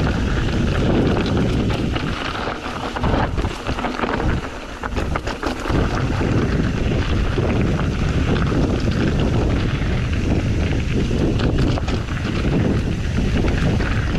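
Wind buffeting the microphone of an action camera on a mountain bike riding down a rocky gravel trail, over a steady rumble of the tyres on the dirt. A cluster of short knocks and rattles about three to six seconds in, as the bike goes over rocks.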